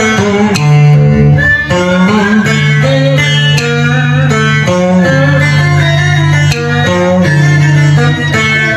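Electric guitar playing a Vietnamese cải lương melody with bent, wavering notes, accompanied by a đàn cò two-string fiddle, over long steady low notes.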